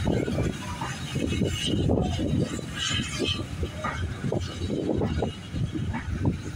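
Vintage passenger coaches rolling past along a station platform, their wheels running on the rails, under heavy gusting wind noise on the microphone.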